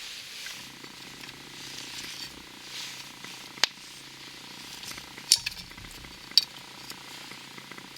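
Wood campfire burning, a steady crackle and hiss with three sharp pops, the loudest events, about three and a half, five and a third, and six and a half seconds in.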